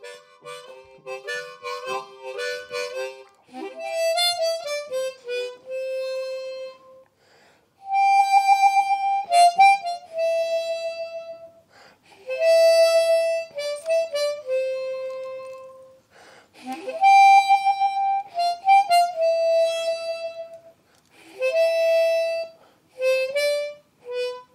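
Suzuki harmonica played solo: a quicker run of notes at the start, then a slow melody of held notes, some sliding up into the note and some with vibrato, the same phrase played twice.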